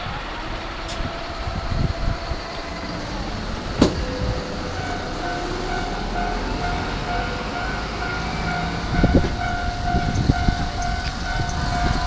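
Electric train running past on the rails with a low rumble. About five seconds in, a level-crossing warning bell starts ringing in an even repeating beat. A single sharp clack sounds a few seconds in.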